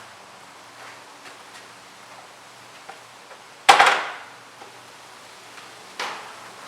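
1996 Honda XR250R dirt bike being kick-started: two sudden kicks, the first loud and fading over about half a second, the second quieter about two seconds later. The engine does not catch and run.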